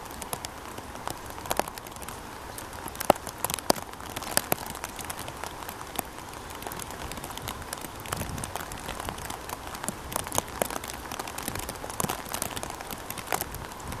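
Raindrops pattering on wet leaves: irregular sharp drips, a few a second, over a steady hiss.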